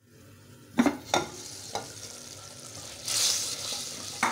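A clay lid knocks twice, about a second in, as it comes off an earthenware handi. Then the tomato masala inside sizzles as a spoon stirs it, with a short hissing rush about three seconds in.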